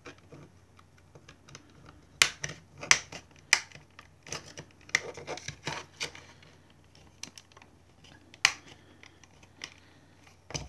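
Metal pry tool clicking and scraping along the seam of a SanDisk 2.5-inch SSD casing as the case is pried apart. Irregular sharp clicks and scratches, the loudest in a cluster about two to four seconds in and one more sharp click late on.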